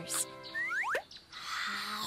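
Cartoon sound effects over soft background music: two quick rising swoops about half a second in, then a soft hissing shimmer near the end.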